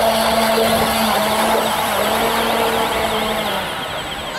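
Motor of a radio-controlled model hydrofoil boat running at speed with a steady whine, over the hiss of spray off the hull and foils. The whine fades out about three and a half seconds in as the boat moves away.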